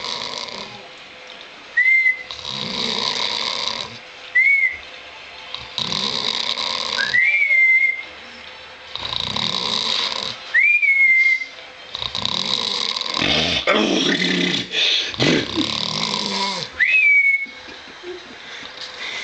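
A man snoring heavily in his sleep. Each breath is a long, loud, noisy snore, and most end in a short whistle that rises and then holds. This repeats roughly every two to three seconds, and the breaths turn rougher and longer a little past the middle.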